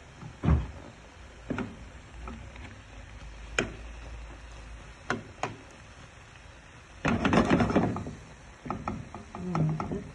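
A metal fork knocking and scraping against a frying pan while stirring and pressing slices of tomato cooking in oil. There are scattered single taps, then a busy burst of stirring about seven seconds in.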